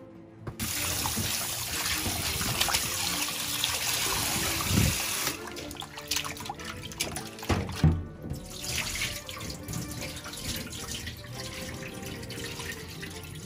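Tap water running into a stainless steel sink bowl of raw chicken pieces, splashing as hands rub and knead the meat clean. The tap runs hard for about the first five seconds, then quieter splashing and handling follow, with a single thump about eight seconds in.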